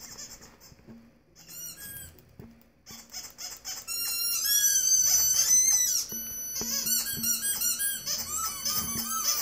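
Squeaky-toy squeaks played through a speaker, rapid and high-pitched. They are faint and sparse at first and get louder and busier about four seconds in.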